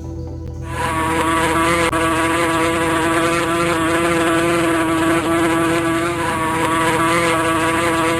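Buzzing of a flying insect, a steady drone that starts about a second in, played for the listener to guess which animal it is.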